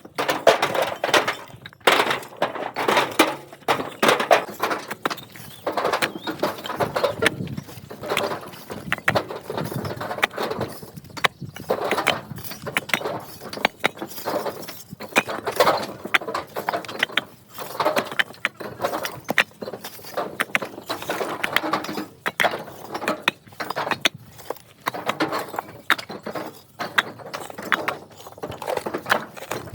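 Irregular clattering and knocking of hard objects, many sharp impacts in quick succession.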